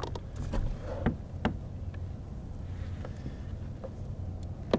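A few sharp light knocks and clicks from a fluke being handled on the deck of a plastic fishing kayak, over a low steady hum.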